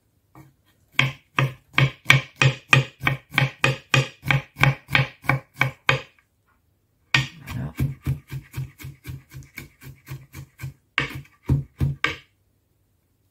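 Chef's knife mincing garlic on a wooden cutting board: an even run of blade knocks on the wood, about four a second. After a pause of about a second comes a quicker, lighter run of chops that ends with a few harder strikes.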